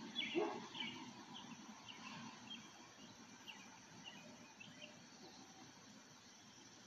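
Faint chirping of a small bird: short high chirps about every half second, thinning out after about five seconds, over a light outdoor background hiss. A brief, louder, lower sound comes about half a second in.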